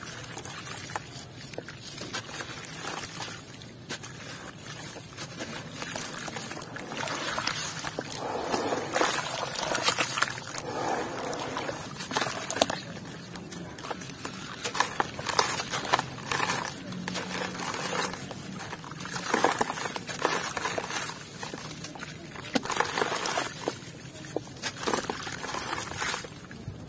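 Dry sand-cement chunks dunked and crumbled by hand in a basin of water: wet grit trickles and splashes into the water, with sloshing and irregular crackling clicks as the chunks break up.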